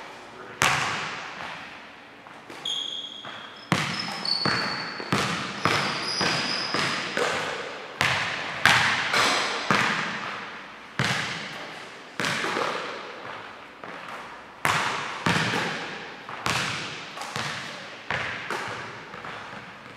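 Basketballs bouncing on a hardwood gym floor and being caught and shot, a steady run of sharp hits that each echo through the hall. A few brief sneaker squeaks come about three to six seconds in.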